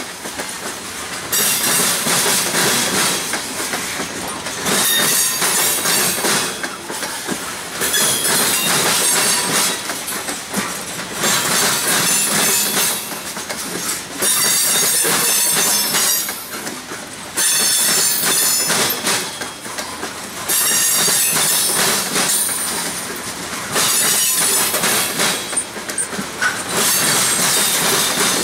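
Freight train hopper cars rolling over a railroad diamond crossing: the wheels bang and clatter across the crossing, swelling every few seconds as each car's wheel sets go over, with high-pitched wheel squeal.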